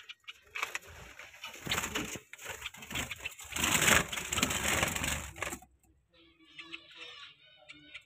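Handheld phone rubbing and scraping against clay nest pots and nesting straw, loudest around the middle. It stops at about five and a half seconds, after which soft bird calls are heard.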